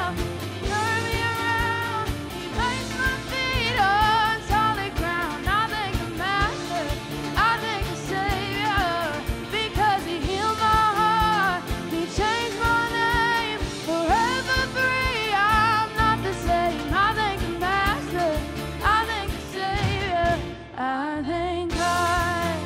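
Church worship band playing an upbeat song, a singer's melody over the full band; the music thins out briefly near the end, then comes back in.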